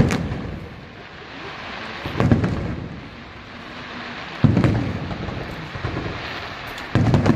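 Fireworks bursting overhead: four heavy booms about two seconds apart, each dying away in a rolling echo.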